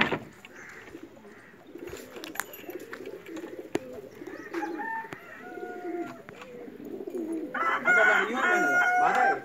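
A flock of domestic pigeons cooing, many low, rolling coos overlapping. Near the end a louder, higher call with held steady tones cuts in over them for nearly two seconds.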